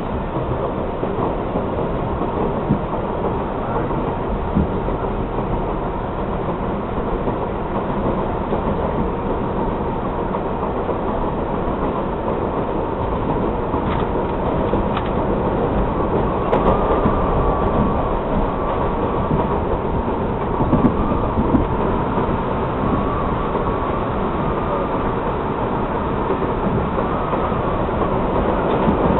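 An R62A subway train running at speed, heard from inside the front car: a steady rumble of wheels on rail with scattered clicks over the rail joints. A wavering high squeal joins about halfway through and fades a few seconds later.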